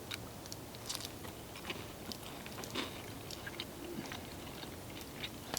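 A man chewing a bite of grilled meat, scattered small clicks of the mouth and jaw close to the microphone.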